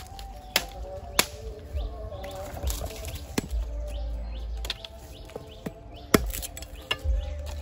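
A few sharp knocks or cracks about once a second or two, the loudest about six seconds in, over small birds chirping and a low rumble.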